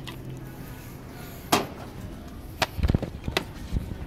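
Wire shopping cart knocking and clattering as it is handled and pushed: a single sharp knock about a third of the way in, then a quick run of knocks and low thuds. A low hum stops about a second in.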